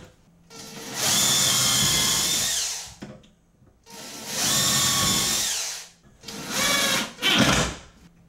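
Makita cordless driver driving wood screws through a door hinge into the jamb: two long runs of steady motor whine, each winding down as it stops, then two shorter bursts near the end as the last screw is set.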